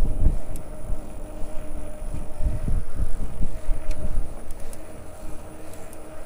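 Electric bicycle riding along, with a steady faint whine under wind buffeting the microphone in low gusts, strongest at the very start and again about two and a half seconds in.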